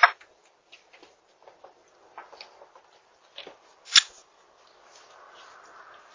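Faint scattered rustling and small clicks, with one sharp, louder click about four seconds in and a faint steady hiss near the end.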